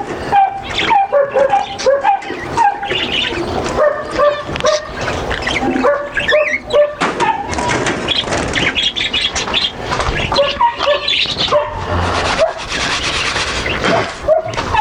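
Dogs barking and yipping over a chorus of small cage birds chirping, a dense run of short calls.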